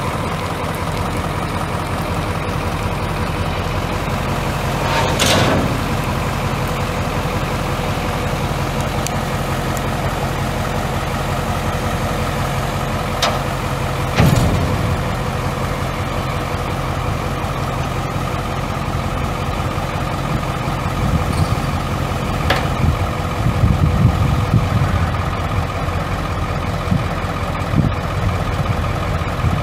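Detroit Diesel 9.0L V6 two-stroke diesel in an International bucket truck, idling steadily. A few short knocks stand out over it, and the low rumble turns uneven and louder in the last third.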